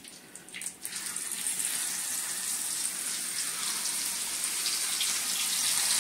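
Chili-marinated whole fish going into hot oil in a frying pan: a couple of light knocks, then sizzling that starts about a second in and grows steadily louder.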